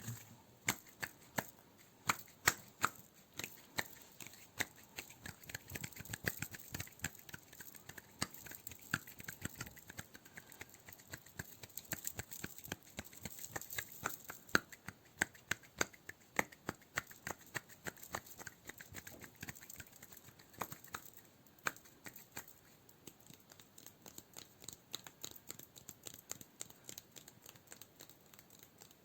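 Close-miked hand sounds: a dense run of sharp, irregular clicks and crackles, several a second, over a soft rubbing.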